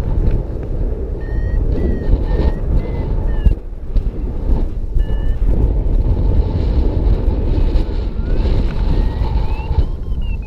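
Strong wind rushing over the microphone in flight, with short electronic beeps from a paragliding variometer that shift up and down in pitch; near the end a tone glides up and then breaks into falling beeps.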